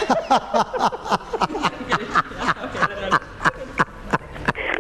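A person laughing helplessly: a long run of breathy, gasping ha-ha pulses, about five a second, each falling in pitch.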